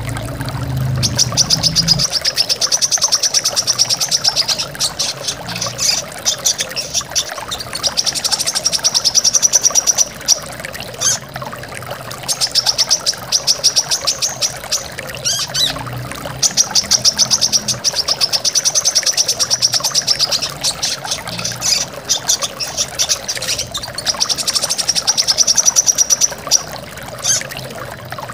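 Brown-throated sunbird singing: about five long phrases of rapid, high repeated notes, each a few seconds long with short pauses between, over a steady rush of running water from a waterfall.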